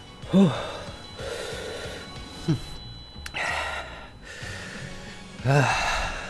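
A man breathing hard through his open mouth, with breathy hissing breaths and three short pitched gasps that fall in pitch, the first and last loudest: reacting to the burn of a ghost pepper (bhut jolokia) he has just eaten.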